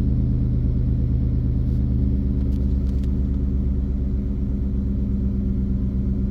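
Ford F-150 pickup's engine idling steadily, a low hum heard from inside the cab; one of its low tones drops away about two seconds in.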